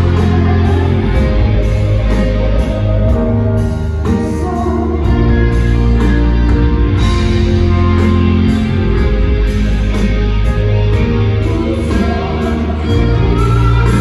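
Rock band playing live through a stadium PA: electric guitar, bass and drums, with a sung vocal.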